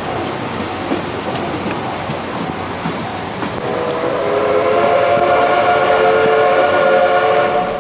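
Blue 14-series passenger coaches of a steam-hauled train rolling past on the rails. A little under four seconds in, a steady train whistle joins and holds over the rolling noise, becoming the loudest sound.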